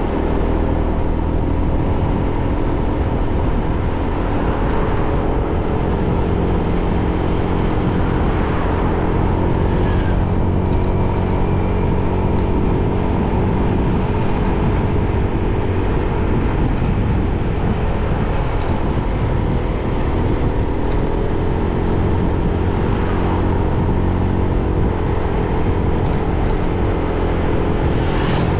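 Motorbike engine running under way, its pitch shifting up and down a few times with the throttle, over a steady low rumble of wind on the microphone.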